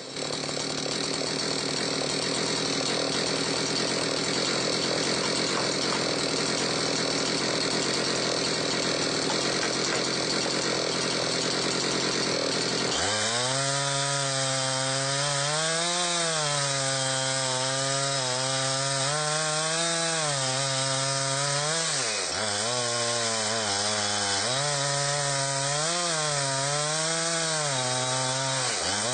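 Chainsaw in a chainsaw mill running at high revs, ripping a cherry log lengthwise into a slab. About halfway through, the engine's pitch starts to waver up and down, dipping briefly twice.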